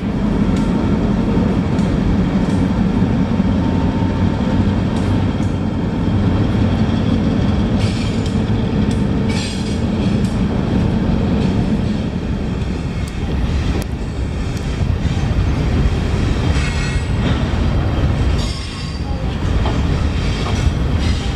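First Coast Railroad freight train crossing a wooden trestle: the diesel locomotive's steady low rumble, then the freight cars rolling over, with short high-pitched wheel squeals about a third of the way in and again near the end.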